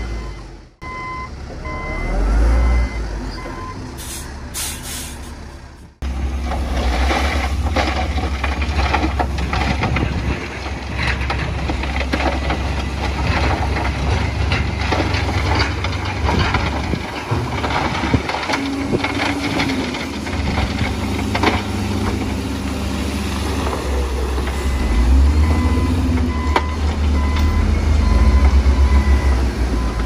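Heavy diesel earthmoving machines (dump trucks, bulldozer, wheel loader) running with a deep engine rumble and clattering, as rock is dumped and pushed. A reversing alarm beeps at the start and again near the end, and there is a short hiss about four seconds in.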